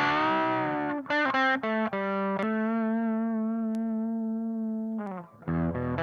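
Distorted electric guitar played through the SAE Effects Beldam pedal, a germanium treble booster and a silicon fuzz, into a Bassman-style tube amp. A bent chord and a quick run of notes lead into one note held for about three seconds that sags in pitch as it is let go. After a brief gap, a new chord riff starts near the end.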